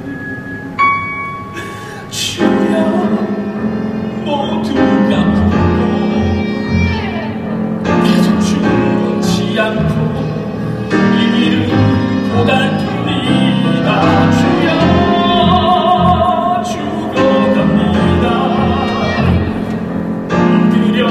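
Live musical-theatre singing with piano accompaniment. It starts sparse with a few held notes, then swells into fuller, louder singing about two seconds in, with wavering held notes later on.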